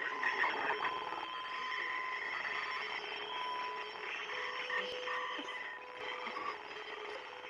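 Radio static: a steady hiss with plain held tones at a few different pitches that come and go every second or two, like a shortwave receiver between stations.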